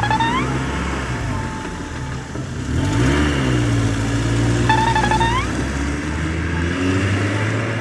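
Cartoon vehicle engine sound effect running steadily, revving up briefly about three seconds in, with two short rising squeaks, one at the start and one about five seconds in.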